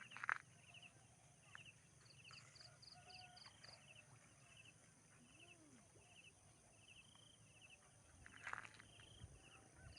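Faint outdoor ambience with small animals chirping: short, pulsed chirps repeating about once or twice a second. A brief louder rustle or knock comes about eight and a half seconds in.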